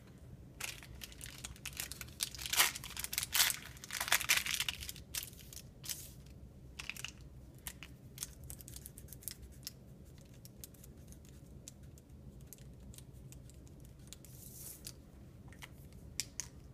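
Aluminium foil crinkling and crackling as hands fold and handle it, busiest and loudest a couple of seconds in, then lighter scattered rustles.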